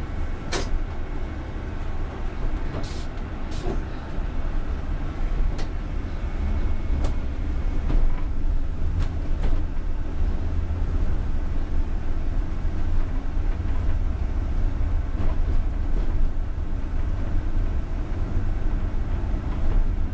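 Cab of a UTTZ-6241.01 (MAZ-203T) trolleybus under way: a steady low rumble of the running gear and road with faint steady tones of the electric drive, and a handful of sharp clicks and rattles. The rumble gets a little louder about eight seconds in.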